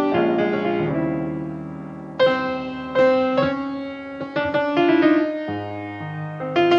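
Recorded solo jazz piano: chords and melody notes struck and left to ring, with new loud chords about two and three seconds in.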